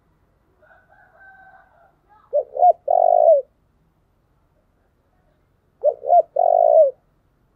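Spotted dove cooing: two phrases about three seconds apart, each two short coos followed by a longer coo that drops in pitch at the end.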